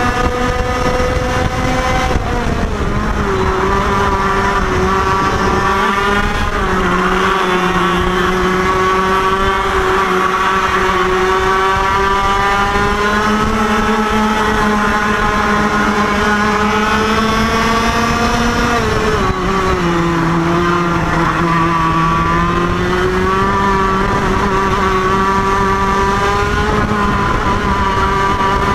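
IAME KA100 single-cylinder two-stroke kart engine running at racing speed, its pitch dropping sharply about two seconds in and again about two-thirds through as it slows for corners, then climbing back up under acceleration. A second kart's engine runs close alongside.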